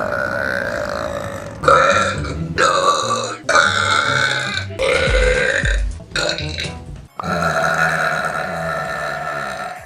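A woman belching loudly, about six long, drawn-out burps in a row with short breaks between them, each held on a steady pitch. The last burp is the longest, at over two seconds.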